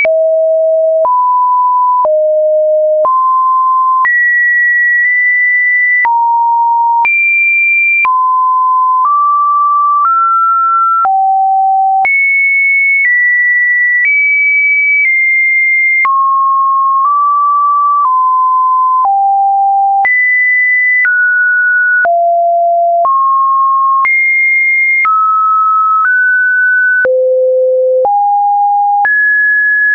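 Computer-generated sine-wave test tones: a run of pure electronic beeps, each held for about a second before jumping to a new pitch, some high and some mid, in no melodic order. A faint click sounds at each change of pitch.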